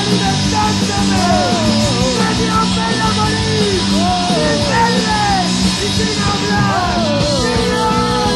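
Punk rock song playing loudly and steadily: a full rock band with electric guitars and drums.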